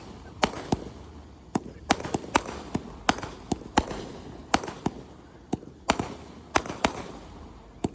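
Fireworks show: aerial shells bursting in quick, irregular succession, two or three sharp bangs a second, each with a short echo.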